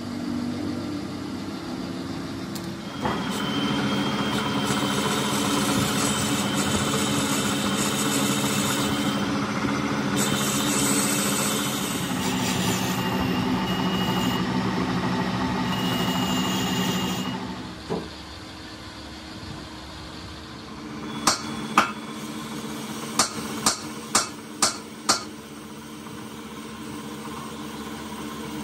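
Metal lathe boring out a gunmetal (bronze) bush with a boring bar: a steady machine hum that grows louder about three seconds in as the cut runs, then drops back around eighteen seconds in. Near the end come seven sharp clicks in quick succession.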